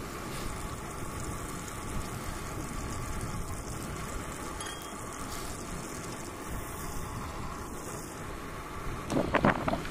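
Steady wind noise buffeting the microphone, over the hiss of a gas canister camp stove burning under a frying pan of melting butter. A few short, louder sounds come near the end.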